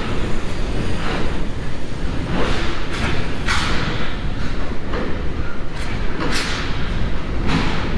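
Wind buffeting and road rumble from riding a bicycle: a loud, steady low rumble with a rush of hiss swelling up every second or so.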